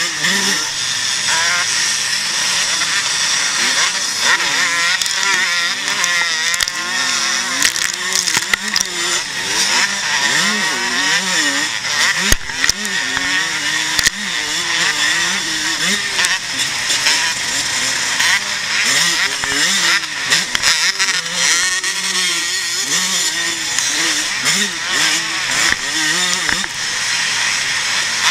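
Vintage pre-1990 motocross motorcycle engine heard on board at race pace, its pitch rising and falling constantly as the throttle opens and closes through the corners and straights. A couple of sharp knocks come about halfway through.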